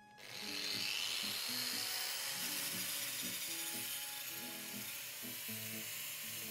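Angle grinder grinding a small metal part, a steady high hiss that comes in about a quarter second in. Background music plays underneath.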